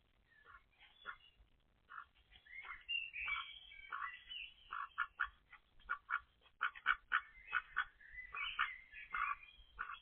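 Domestic ducks quacking in short, repeated calls, sparse at first and coming quickly one after another from about three seconds in.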